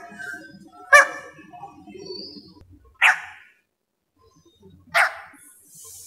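Two-day-old Dalmatian pelican chick giving three short squawks, about two seconds apart.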